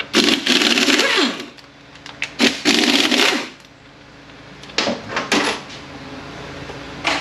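A small power tool running in two short bursts, each about a second long, with its pitch sliding as it spins, followed by a few sharp metal clinks, during bench disassembly of a transfer case.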